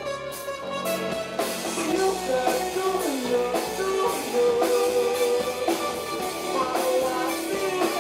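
A song with a rock backing of drum kit and guitar, and a sung melody sliding between notes over it.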